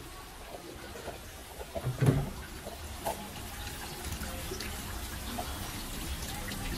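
Water splashing steadily into a small koi pond, with one loud thump about two seconds in.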